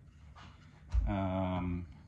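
A man's voice holding a steady, low 'uhh' for almost a second, just after a sharp click from handling the chainsaw's parts.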